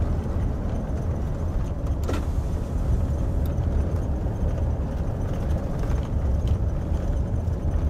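Chevy high-top van's steady engine and road rumble heard inside the cabin while driving slowly, with one brief sharp click about two seconds in.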